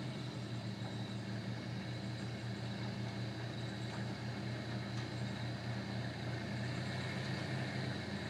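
Pickup truck's engine running steadily at low revs as it reverses slowly with a trailer hitched.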